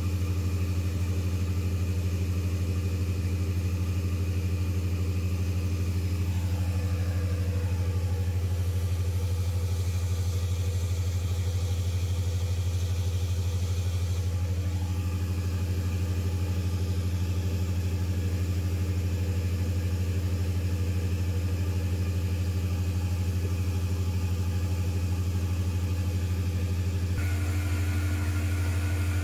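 Large natural gas engine generator set running steadily under load, supplying about 300 kW to the grid: a constant deep hum with several steady tones above it. The mix of tones shifts slightly near the end.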